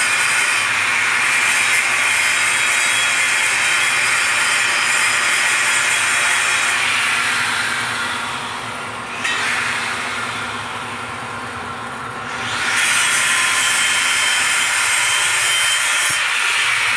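Welding arc on a 6-inch steel pipe test joint, giving a steady crackling hiss. It weakens for a few seconds in the middle, with one sharp click, then comes back at full strength.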